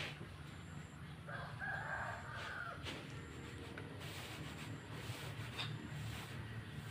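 A rooster crows once, about a second in, a call lasting a little over a second, over a steady low hum.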